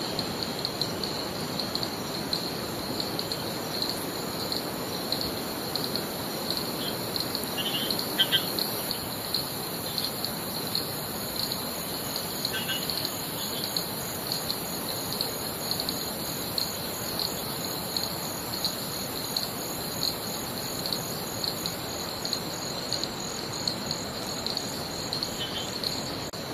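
Rainforest insects calling steadily: a continuous high, rapidly pulsing trill, joined about halfway through by a second, higher and faster pulsing call, over a steady rushing hiss. A few short high chirps come now and then.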